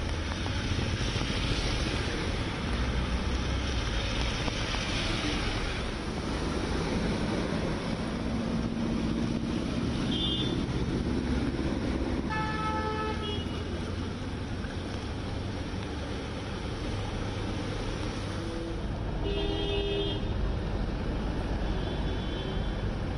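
Flooded-street traffic: a steady rush of vehicles and water, with vehicle horns tooting briefly several times. The clearest horn sounds about halfway through.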